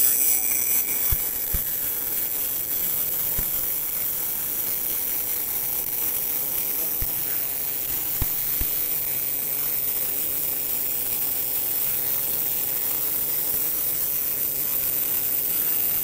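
Smartmig 265 Tenya MIG welder's arc laying a continuous bead on steel plate, running with a steady even hiss and a few soft pops.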